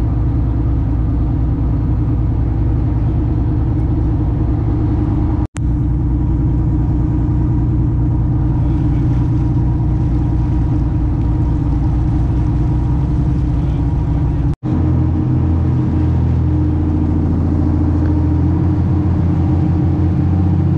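Sport-fishing boat's engine running steadily under way, with a low, even drone. The sound drops out for an instant twice, and after the second break the low note is heavier.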